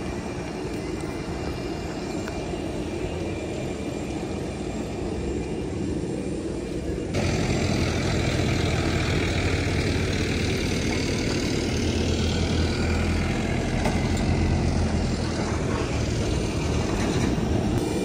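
Steady running noise of a Boeing 737-500 airliner's CFM56 jet engines, with a faint high whine. About seven seconds in the level jumps abruptly and a stronger low hum comes in.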